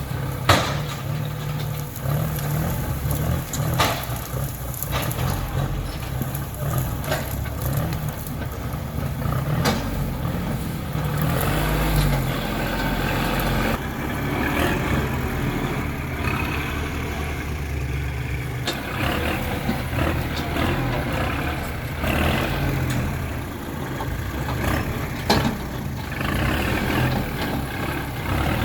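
Heavy diesel engines of earthmoving machinery running steadily, with a few sharp knocks or clanks scattered through.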